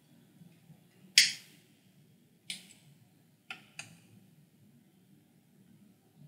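A few short, sharp clicks over a faint low hum: the loudest about a second in, another a little later, then a quick pair near the middle.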